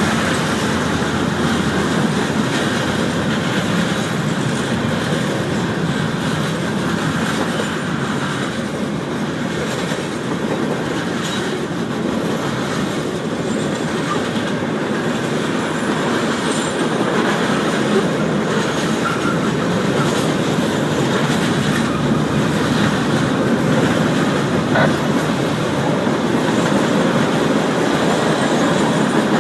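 Norfolk Southern freight train's cars rolling past, with steady, continuous wheel-on-rail noise.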